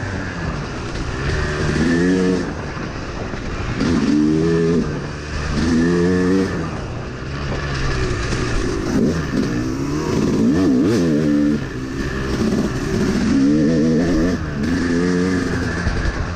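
Yamaha YZ250 single-cylinder two-stroke dirt bike engine, heard from on the bike, revving up and falling back about six times as the throttle is opened and closed.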